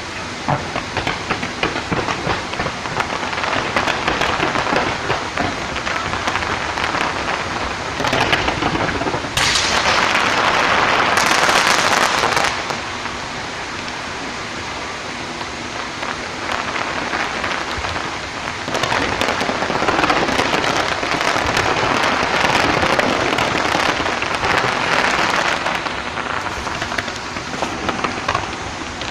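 Fireworks display: a dense, continuous crackling with bangs, swelling into two louder spells, one about a third of the way in and another in the second half.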